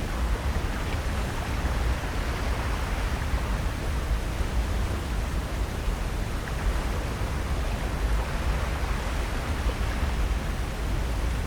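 Steady seaside ambience: ocean surf making a continuous wash of noise with a deep rumble underneath, and no single event standing out.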